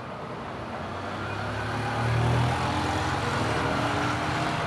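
A low engine rumble that grows louder over the first two seconds and then holds steady.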